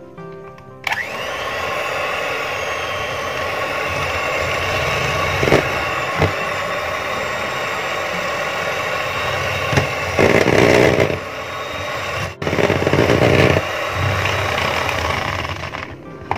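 Electric hand mixer switched on about a second in, its motor whining steadily as the twin steel beaters whip softened butter in a plastic bowl. Two louder, rougher stretches come in the second half, and the motor stops near the end.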